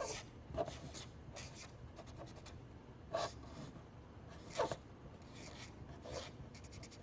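Paper being handled and rustled in a craft task, with scattered short scrapes about a second apart and two quick runs of fine ticks, about two seconds in and near the end.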